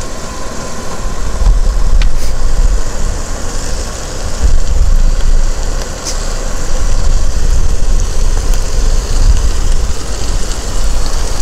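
Ground beef smash burger patty sizzling steadily in hot grease, an even hiss, over a loud, steady low rumble.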